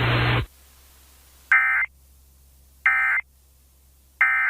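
Emergency Alert System end-of-message code: three short identical bursts of digital data tones, each about a third of a second long, a little over a second apart. A loud hiss cuts off about half a second in, before the first burst.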